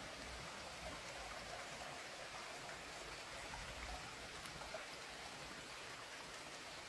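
Steady hiss of water in a forest, even and unbroken, with faint scattered ticks and patters through it.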